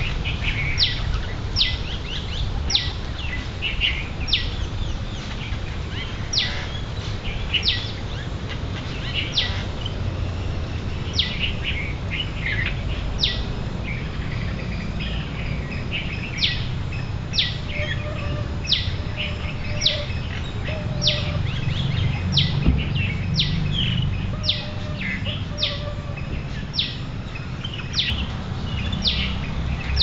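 A bird repeatedly giving a short, sharp, high call note that drops quickly in pitch, about once a second and sometimes faster, with softer chirps from other birds between, over a steady low rumble.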